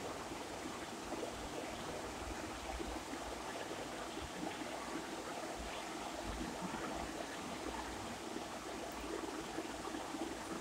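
Steady rushing background noise with no distinct sounds in it.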